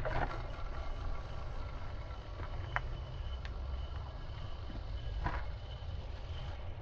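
A steady low rumble of wind on the microphone, with a faint thin whine and a few light clicks from a fishing rod and reel just after a cast.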